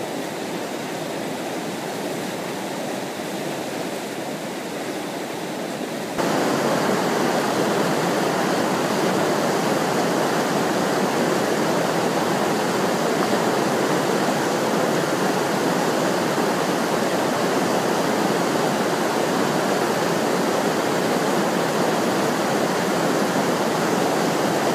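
Whitewater of a river standing wave rushing steadily close by, an even noise of churning water. About six seconds in it jumps suddenly louder and brighter, then holds steady.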